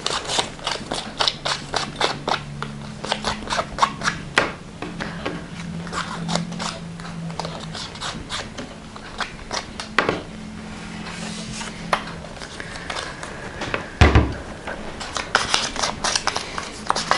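Distress ink pad dabbed and rubbed repeatedly along the edges of paper cutouts: a quick run of light taps and scuffs, with one heavier thump on the table about fourteen seconds in. A faint low hum sits underneath through the middle.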